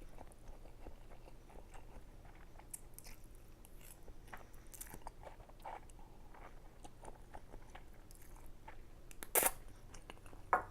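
Close-miked chewing of ramen noodles: soft wet mouth sounds with a scatter of small clicks, and two sharper clicks near the end.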